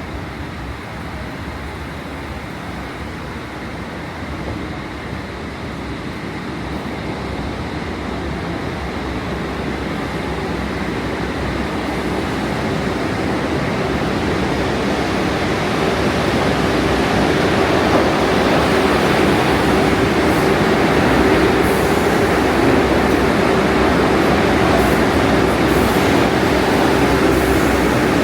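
New York City subway train running, a steady rumble with a hum that builds in loudness over the first half, then holds. A few brief high-pitched streaks come in near the end.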